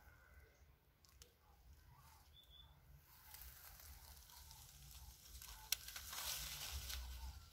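Faint rustling of dry leaves that grows louder about five and a half seconds in, with a single sharp click just before the loudest part.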